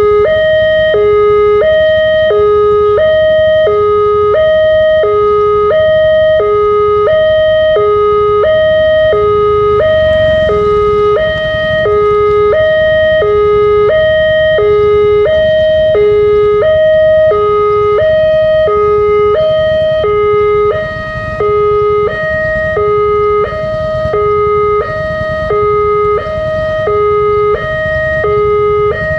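Electronic railway level-crossing alarm sounding a steady two-tone hi-lo warning, about one high-low cycle a second, the signal of an approaching train. A low traffic rumble runs underneath.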